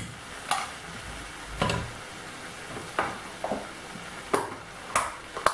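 Vegetables and bread cubes frying with a low, steady sizzle in a stainless-steel pot, while spoons knock and scrape against the pot several times as spice is added and the mix is stirred. The mix is starting to catch on the bottom of the pot.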